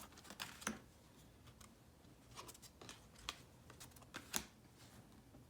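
Tarot cards being handled during a flip-through: faint, scattered clicks and taps of card stock, with a sharper tap about a second in and another near the end.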